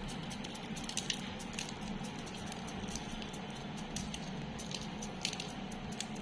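Sugar sprinkles pattering in light, irregular ticks onto chocolate-coated puris on a paper plate, over a steady low background hum.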